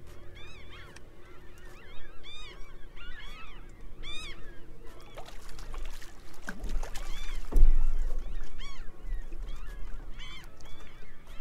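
A flock of water birds calling, many short rising-and-falling calls overlapping one another, with wind rumbling on the microphone. About seven and a half seconds in comes a louder knock with a rush of noise, the loudest moment.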